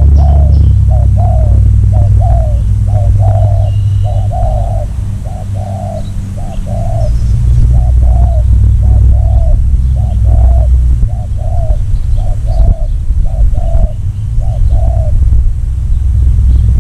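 Dove cooing in a long run of short, repeated notes, about two a second, stopping near the end, over a loud low rumble.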